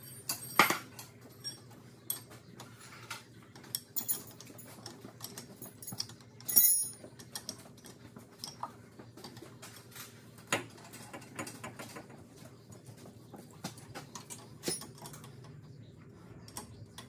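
Hand tools and bolts clicking and clinking against a tractor's steel frame in scattered, irregular strokes, with a few sharper clanks, over a faint steady hum.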